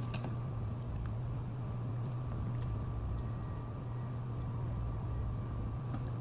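Steady low mechanical hum with a faint constant higher tone, like a fan motor running, with a few faint light ticks over it.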